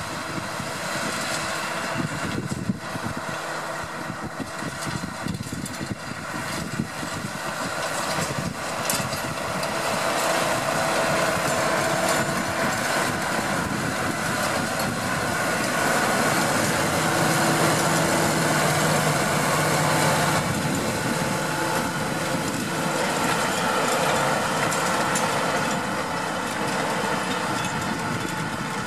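Deutz-Fahr 6155 tractor's diesel engine running steadily under load while it pulls a power harrow and disc cultivator through the soil. It gets somewhat louder for a few seconds in the middle.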